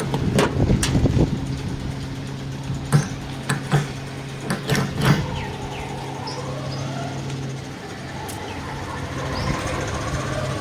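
Steady low engine hum, with a handful of sharp clicks and knocks in the first half.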